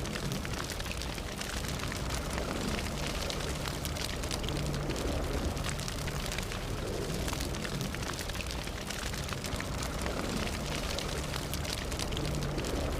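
Fire burning: a steady low rumble with dense, continuous crackling and small pops.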